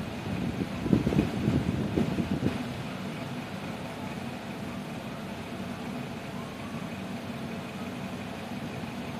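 A steady mechanical hum, with irregular rustling and handling noises in the first two and a half seconds.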